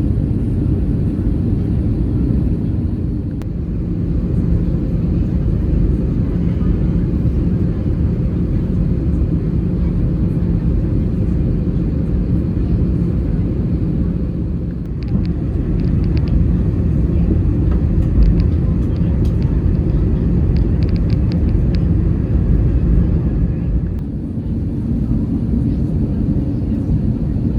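Airbus A320 cabin noise in flight: a steady low rumble of engines and airflow heard from inside the cabin, with a faint hum through the first half and a few light ticks partway through.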